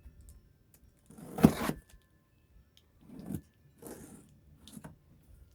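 Packaging of a new palm sander being opened and handled: a few short rustling scrapes, the loudest about a second in.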